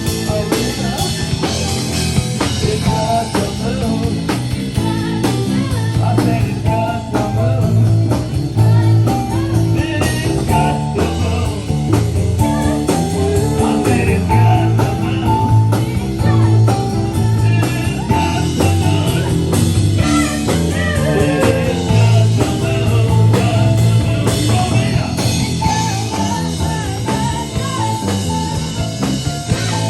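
Rock band playing a song with electric guitar, drum kit and a heavy bass line, steady and loud throughout.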